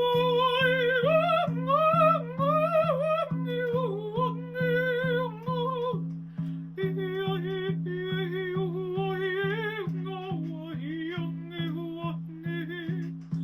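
A woman's voice singing a wordless improvised vocal line with wide vibrato, sliding between held notes, over a steady low backing pulse of about three beats a second. The voice breaks off briefly about halfway through and again at the end.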